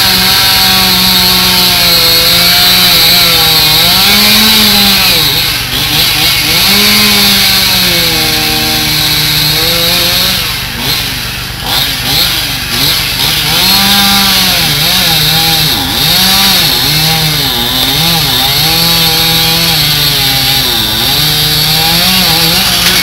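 Two-stroke chainsaw cutting a large fallen tree trunk, its engine revving up and dropping in pitch again and again as the chain bites into the wood, with brief lulls about six and twelve seconds in. A steady low engine hum runs underneath.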